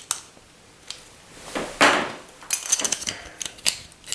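Screwdriver prying and scraping at a jammed tubular door latch mechanism: sharp metal clicks and ticks, with a longer rasp about halfway through, as the stuck latch is worked loose.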